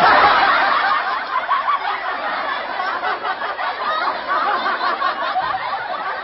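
Canned crowd laughter, a laugh track of many voices at once. It is loudest at the start, eases off slightly, and is cut off abruptly at the end.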